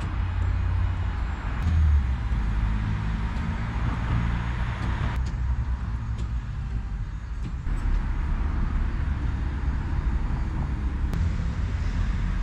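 DINO 160XTB II lift's motor and hydraulics running with a steady low hum as the lift is lowered and stowed, with a few light clicks.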